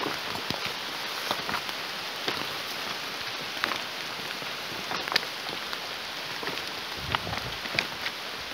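Steady rain falling on forest foliage and rocks, an even hiss with scattered sharp ticks and knocks throughout.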